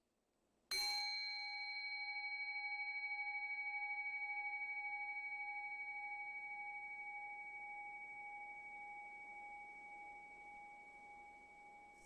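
A Buddhist bowl bell struck once, about a second in, then ringing on with a wavering tone that slowly fades.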